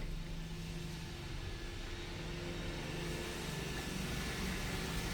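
Steady low mechanical hum with a hiss that grows slightly louder over the last couple of seconds.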